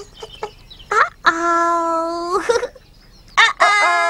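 A Teletubby's high voice making short chirpy syllables, then two long held vocal sounds of about a second each.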